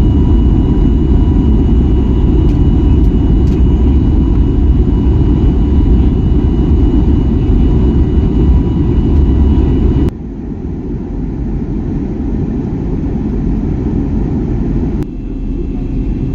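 Airbus A320neo cabin noise: a steady, loud, low rumble of jet engines and airflow with a faint steady whine above it. About ten seconds in it cuts suddenly to a quieter rumble, with another sudden step about fifteen seconds in.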